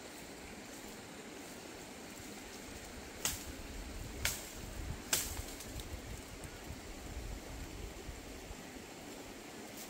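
Machete chopping into a tree trunk: three sharp strikes about a second apart, over the hiss of outdoor background.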